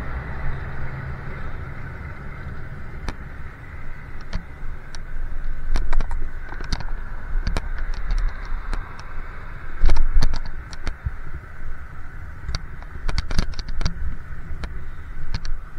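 Road noise while riding a bicycle: a steady rush of wind and tyres with frequent rattling clicks and knocks, the loudest about six and ten seconds in.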